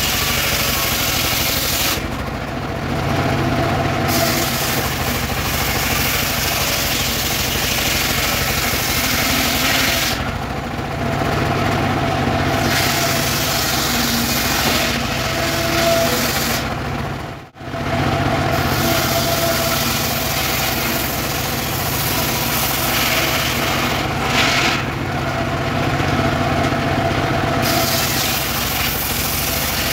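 Engine-driven circular saw ripping weru (Albizia) planks lengthwise. The cutting adds a high hiss over the steady engine noise, and it eases to just the engine and the free-spinning blade in short pauses between passes, about 2, 10 and 24 seconds in.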